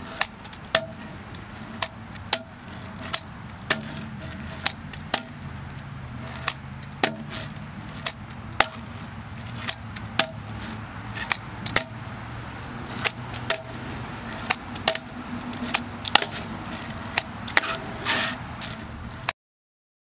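Handboard tricks on a rough-topped picnic table: a string of sharp clacks, about one or two a second, as the board's tail pops and its wheels and deck land on the table. Near the end there is a short stretch of rolling and scraping. A steady low rumble runs underneath.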